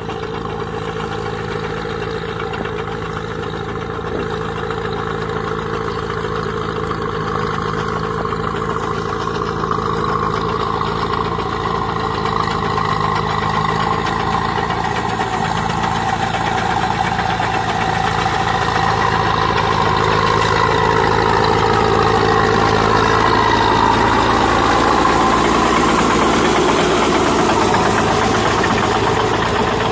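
Tracked tractor's diesel engine running steadily under load while pulling a rotavator through a flooded paddy field, growing gradually louder as it approaches.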